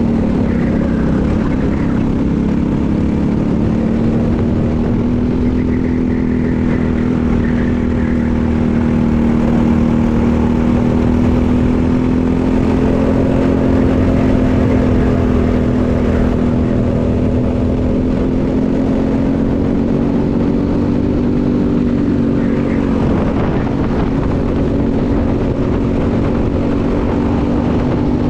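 Briggs & Stratton LO206 single-cylinder four-stroke kart engine running at racing speed, heard onboard. The engine note holds steady at high revs, dipping briefly about a second in and again about three quarters of the way through, with wind rush on the microphone.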